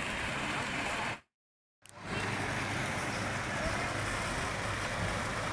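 Steady rushing splash of water jets falling from a pool bar's roof into a swimming pool. The sound drops out completely for about half a second, about a second in, where the recording is cut.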